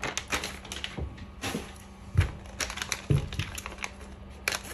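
Irregular clicks and light knocks of small parts being handled as an RC helicopter's landing skid set is fitted together.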